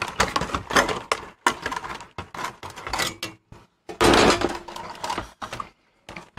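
Clicks, knocks and clatter of plastic and sheet-metal VCR parts being handled as a metal cover is lifted off the chassis. About four seconds in there is a longer, louder scraping rub as the unit is moved.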